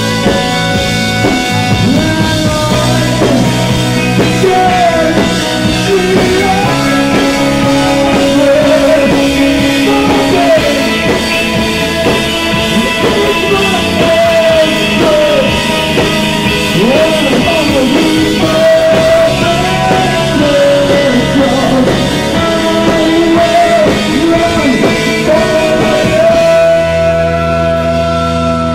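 Live rock band playing: distorted electric guitar with bending lead lines, a drum kit and a male singer. Near the end the band moves to a long held chord.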